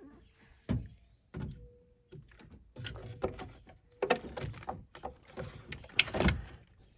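A car battery being lowered and worked into its plastic tray in the engine bay: a string of knocks and scrapes of the battery case against the tray, the loudest a little after six seconds in.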